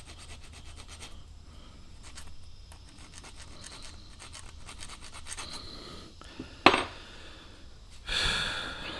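A small hand file rasping in short strokes across a steel broadhead's cutting edge to sharpen it. About two-thirds of the way through there is a sharp click, and near the end comes a louder, longer stroke.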